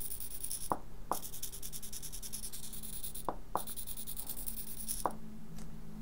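Small blue hobby servo motor stepping its horn through its sweep under Arduino control: a fast, buzzy, ticking chatter of small steps about a tenth of a second apart. It is broken twice by short pauses that start and end with a click as it reaches a limit and reverses, and it goes quiet about five seconds in when the push button is released.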